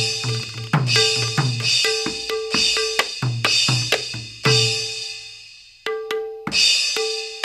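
Rhythmic drum and percussion music: deep drum thuds with a ringing tone, each main stroke paired with a bright metallic shimmer like hand cymbals, repeating about every three-quarters of a second. The pattern thins out briefly about five seconds in, then picks up again.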